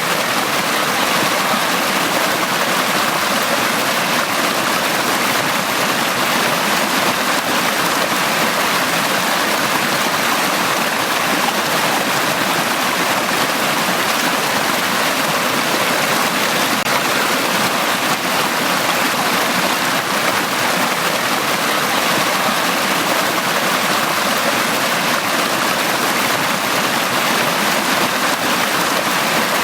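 Stream water flowing steadily over rocks, an even rushing with no change throughout.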